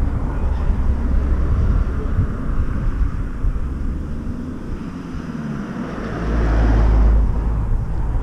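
Wind buffeting the camera's microphone: a heavy low rumble that swells to its loudest about six to seven and a half seconds in.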